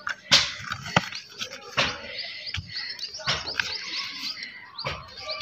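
Sheet of paper being handled and folded, giving sharp crackles and taps several times, over the steady chirping of small birds.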